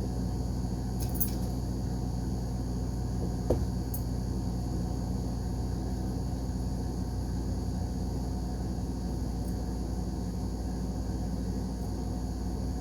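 Steady low background hum, with one sharp click about three and a half seconds in.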